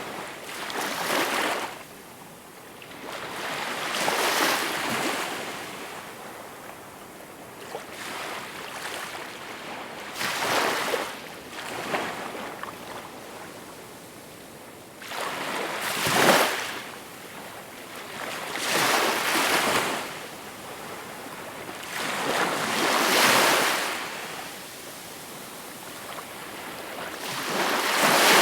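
Small waves breaking and washing ashore: a rush of water noise that swells and falls back every few seconds, with no steady rhythm.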